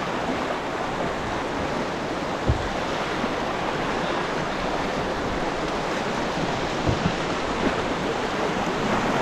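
Steady rush of a river standing wave breaking around an open canoe's hull while the canoe surfs on it. A few brief low thumps stand out, about two and a half seconds in and twice near the end.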